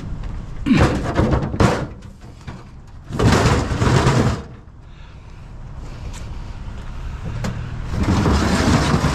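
Scrap metal being handled and loaded, with three bursts of scraping and clattering over a steady low vehicle hum.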